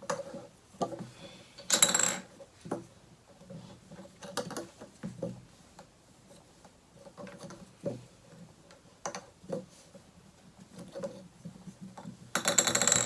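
Plastic Play-Doh molds and tools tapping and clattering against a tabletop, with scattered light knocks and two brief louder clatters, one about two seconds in and one near the end.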